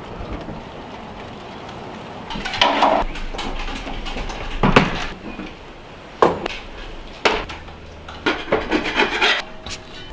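Knocks, clunks and rubbing as a portable Weber gas barbecue on a wooden deck table is opened and its cover handled. After a couple of seconds of steady hiss come about half a dozen sharp knocks, a second or two apart, with scraping between them.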